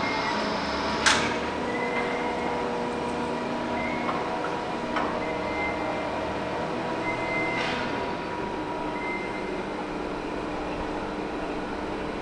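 Heavy machinery running steadily with a hum, with one sharp metal clank about a second in and fainter knocks later, plus brief high squeaks now and then.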